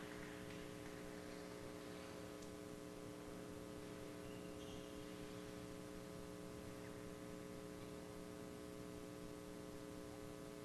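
Steady electrical hum, several fixed low tones over a light hiss.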